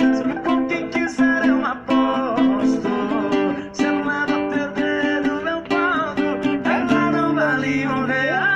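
Acoustic guitar played as a run of quick plucked notes over a repeating bass pattern, with a few sliding notes near the end.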